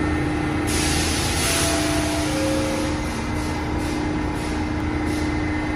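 R68 subway train standing at the platform with a steady hum, and a burst of air hiss about a second in that fades after a second or so. Around two seconds in there are two faint tones, the second lower than the first.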